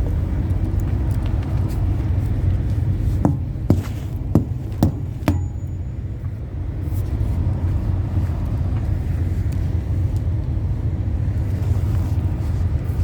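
Semi truck's diesel engine idling with a steady low rumble, with a few sharp clicks and knocks about three to five seconds in.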